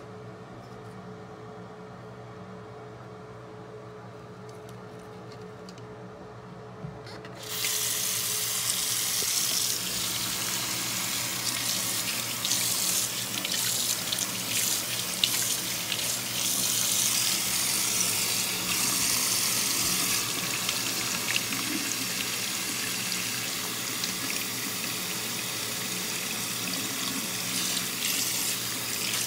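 Low steady hum for the first seven seconds or so, then a bathroom sink faucet is turned on and water runs steadily from the tap into the basin, splashing.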